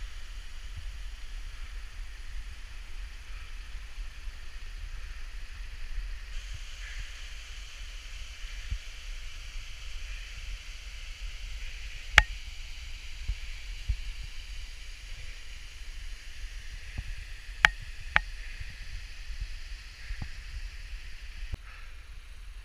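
Mountain stream rushing over rocks, with wind rumbling on an action camera's microphone and a few sharp knocks about halfway through and later.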